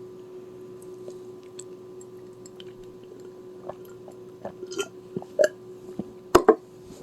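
Someone chewing poutine close to the microphone, with scattered short clicks and smacks of the mouth through the second half and two loud ones near the end, over a steady hum.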